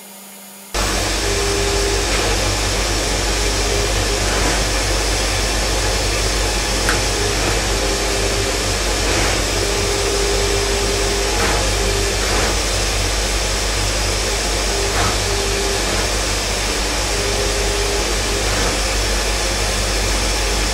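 Haas Multigrind CB CNC grinding machine running as it probes the teeth of a hob cutter: a steady hiss and hum that starts abruptly about a second in, with a mid-pitched tone coming and going in short stretches.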